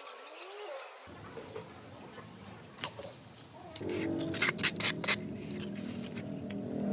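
Sharp clicks and knocks of plastic PVC pipe fittings being handled and fitted at the concrete base, a quick cluster of them between about four and five seconds in.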